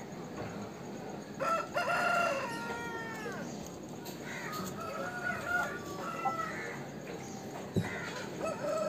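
Rooster crowing once, a long call that falls off in pitch at the end, followed by several shorter, softer calls from other chickens.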